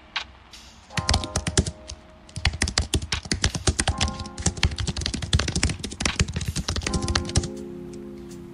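Computer keyboard typing in fast bursts of clicks, pausing briefly about a second and two seconds in and dying away near the end, over background music.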